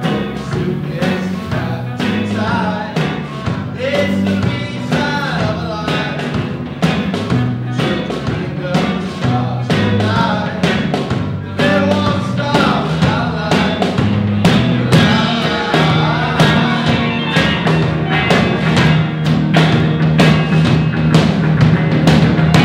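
A rock band playing, with drums keeping a steady beat under bass and guitar.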